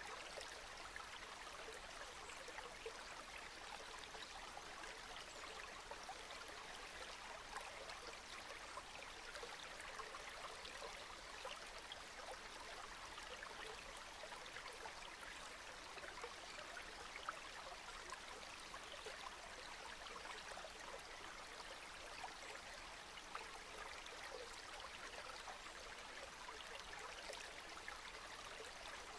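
Steady rain: an even hiss of falling water with many small drop ticks scattered through it, no thunder and no change in strength.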